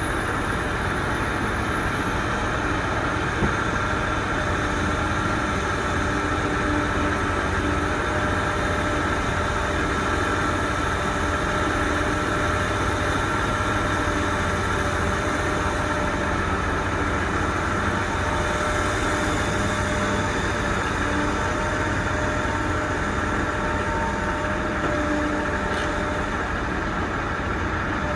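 Engines of a BEML BE1000 mining excavator and BEML BH60M dump trucks running steadily: a constant low rumble with a steady whine over it.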